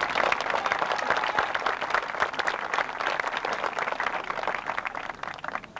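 Audience applauding, many hands clapping together in a dense patter that thins out near the end.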